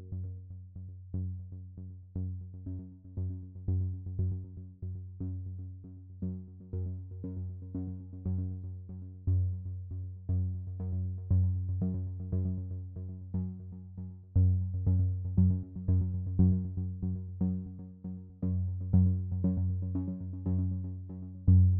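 Background electronic synthesizer music: a quick, pulsing run of repeated notes over a steady bass that swells louder several times.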